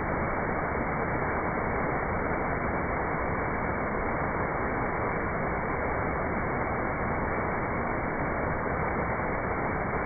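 Small waterfall pouring over a layered rock ledge into a pool, a steady rushing of water without a break.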